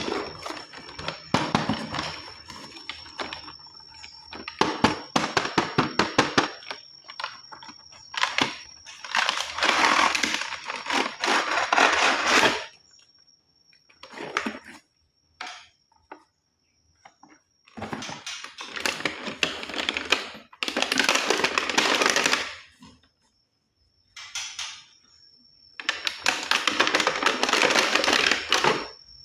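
Plastic toy guns being handled: a long run of rapid clicks and clatter, then several loud rattling noise bursts of a few seconds each with pauses between. A steady high-pitched tone sounds in the quieter stretches.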